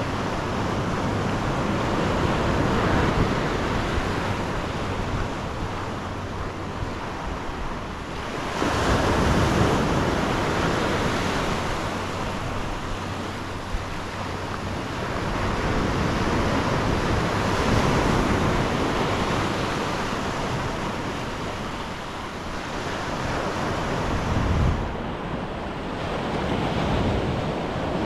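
Mediterranean surf breaking on the shore, a steady wash that swells up and eases back every several seconds, with wind rumbling on the microphone.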